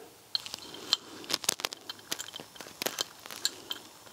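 Irregular sharp clicks and light scraping of a screwdriver and small metal parts being handled while screws are worked back into a Bosch K-Jetronic warm-up regulator.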